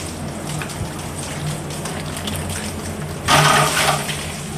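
Water spraying onto an air-conditioner condenser coil during a wash, with a loud spray burst about three seconds in, over a steady low mechanical hum.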